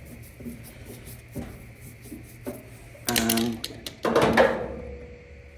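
Hand tools working on a dryer's metal housing while a thermal fuse's screw is put back: a few light clicks, then a louder metallic clatter about four seconds in that leaves a brief ringing tone.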